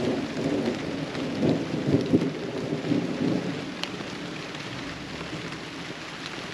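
Steady rain falling in a thunderstorm, with thunder rumbling low through the first half that then dies away, and one sharp tap of a drop about four seconds in.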